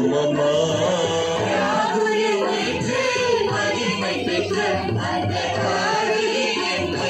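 A hymn sung to instrumental accompaniment, the singing voice carried steadily over the music.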